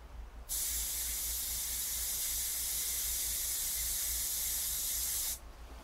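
Aerosol spray-paint can spraying paint onto a bicycle rim in one steady hiss of about five seconds, starting about half a second in and cutting off near the end.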